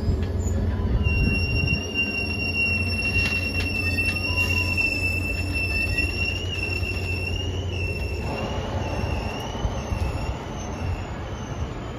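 Caltrain bilevel passenger train rolling slowly past, its cars rumbling low while the wheels give a thin, high squeal. The squeal starts about a second in and wavers in pitch over the second half.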